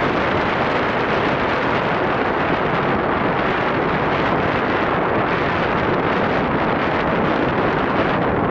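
Wind blowing across the microphone: a steady, loud rushing noise with no let-up.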